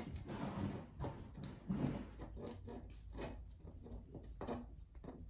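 Allen key turning a screw into the bamboo frame of an IKEA Nesna side table: faint, irregular clicks and scrapes of the metal key in the screw head and against the wood. The screw goes in stiffly.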